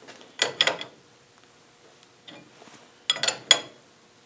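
Steel spanners clinking against a blind bearing puller as its nuts are turned. There are two short clusters of ringing metal clicks, about half a second in and again about three seconds in.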